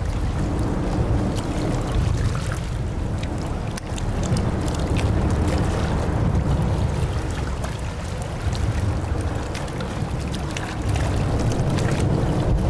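A boat running on rough water: a steady heavy rumble with crackling splashes throughout, a little louder again near the end.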